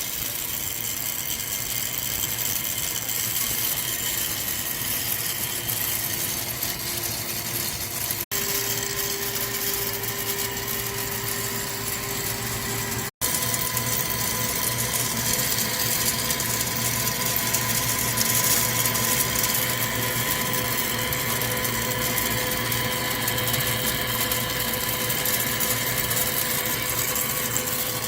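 CNC lathe running, with a steady machine hum and whine. The whine changes pitch at two abrupt breaks about 8 and 13 seconds in.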